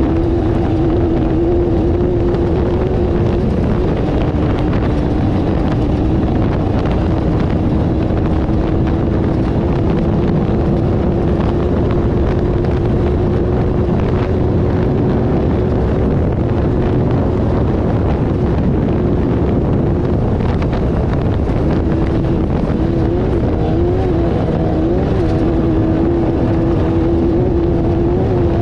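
Off-road race vehicle's engine running hard at a steady pitch over a loud rushing noise. The pitch dips about three and a half seconds in and wavers several times near the end.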